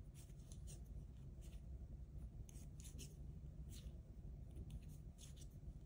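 Wooden knitting needles tapping faintly and yarn rubbing as knit stitches are worked: soft, irregular ticks over a low steady hum.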